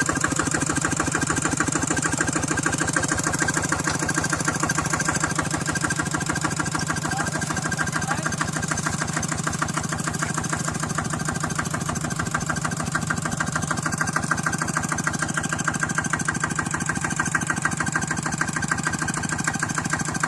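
An engine running steadily at an even speed, with a fast, regular firing beat that holds unchanged throughout.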